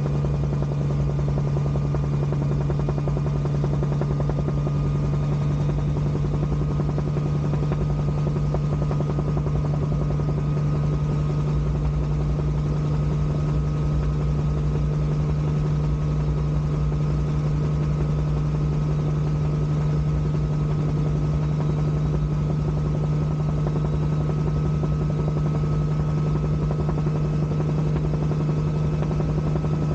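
Bell 47G2 helicopter in level flight, its 260 hp Lycoming piston engine and main rotor running steadily, heard close up from the open cockpit. A strong low hum holds constant, with no change in power.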